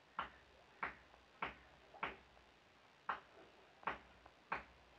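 A faint series of seven short, sharp clicks, spaced about half a second to a second apart and slightly uneven.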